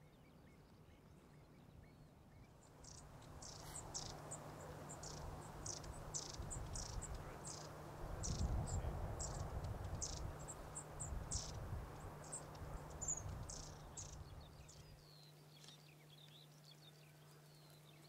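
A run of short, very high chirps, a few a second, from about three seconds in until about fourteen seconds in, with a low rumble swelling in the middle and a faint steady hum underneath.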